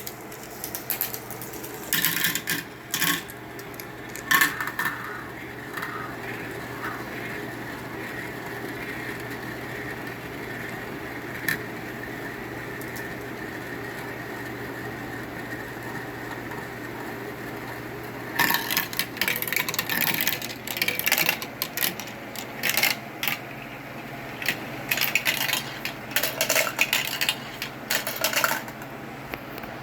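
Marbles running down a Gecko Run wall-mounted plastic marble-run track: a steady rolling rumble in the middle, with scattered clicks and clacks as they drop and knock through the pieces. The clacking is loudest and busiest in the last third.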